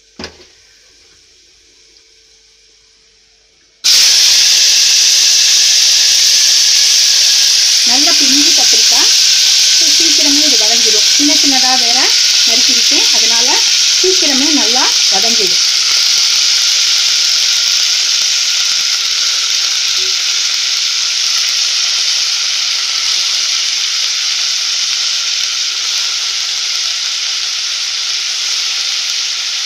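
Chopped brinjal, still wet from its soaking water, dropped into hot sesame oil in an open pressure cooker: a loud sizzle starts suddenly about four seconds in and settles into a steady frying hiss that slowly eases.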